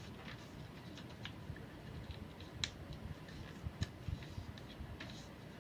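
Sheet of paper being handled and creased while folding a paper airplane: faint rustling with a few scattered sharp crinkles and clicks.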